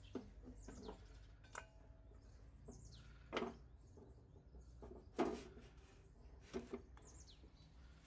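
A few sharp knocks and clunks as the heavy metal head of a 1 HP bench drill press is handled and set onto its steel column, the loudest about three and a half and five seconds in. Short bird chirps falling in pitch come in between.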